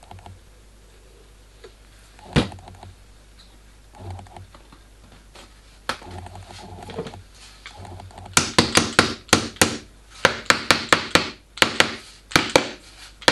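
A soft-faced mallet tapping glued wooden drawer runners down into their slots: a quick run of sharp taps, roughly four a second, over the last five seconds, after a single knock and some quiet handling earlier on.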